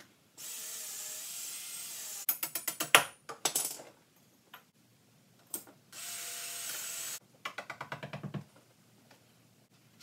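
A cordless drill with a long bit boring down into the dolly's timbers in two runs. Each steady run of the motor is followed by a burst of rapid clicking, several clicks a second. There are a couple of single knocks between the runs.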